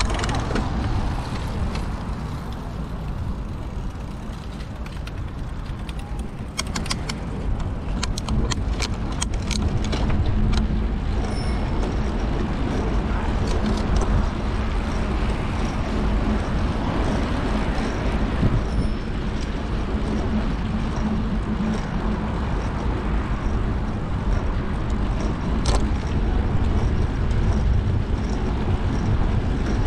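Wind noise on the microphone and tyre noise while riding a bicycle along a paved path, with a steady low hum. A faint high tick repeats about once a second through the second half.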